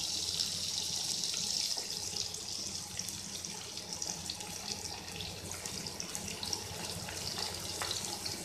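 Chopped onions sizzling in hot oil in a kadhai as they begin to sauté: a steady hiss with scattered small crackles.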